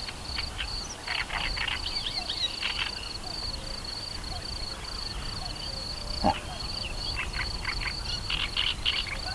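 Frogs croaking in two bouts, about a second in and again near the end, over an insect's steady, rapidly pulsing high chirring. There is a single sharp knock about six seconds in.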